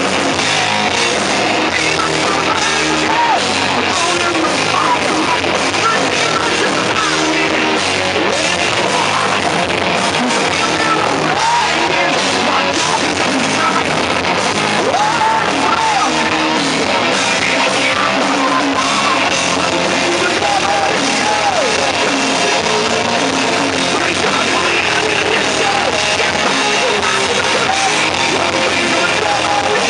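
Rock band playing live at full volume: electric bass, guitar and drum kit, with a male singer's sung and shouted vocals over them. The loudness stays even and dense throughout.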